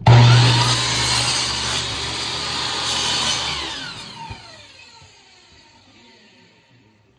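Electric power-tool motor running loud with a steady hum, then switched off about three and a half seconds in and spinning down, its pitch falling as it coasts to a stop over a few seconds.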